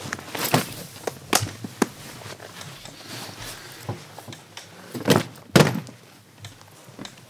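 Scattered knocks and thuds of footsteps on a hollow stage riser as people walk about, the loudest pair a little after five seconds in.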